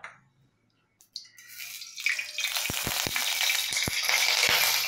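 Black cumin and green chillies hitting hot mustard oil in a steel kadai. After about a second of near silence a loud sizzle builds and holds, with several sharp spitting pops: the tempering (phoron) of the curry.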